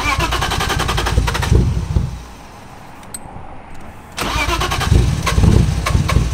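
BMW E30's swapped-in M52 straight-six being cranked on the starter in two tries: a fast, even chugging for about two seconds, a short pause, then a second go starting about four seconds in. The engine is hard to start and is waiting on a proper tune.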